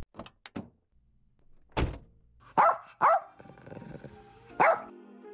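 A logo sting: a few light clicks, a thunk, then three short dog barks, with faint music underneath.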